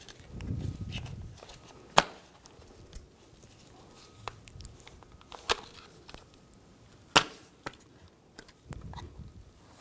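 Plastic tabs of a car door latch cover being pried with a straight-blade screwdriver, giving a string of sharp clicks and snaps, the two loudest about two and seven seconds in, with soft handling noise of the part between them.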